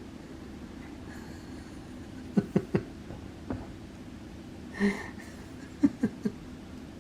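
A Persian cat eating at its food dish: sharp crunching clicks in two quick clusters of three, with one short cry from the cat between them.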